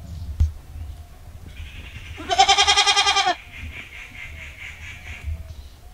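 A goat bleating once: a loud, quavering call about a second long, a little after two seconds in.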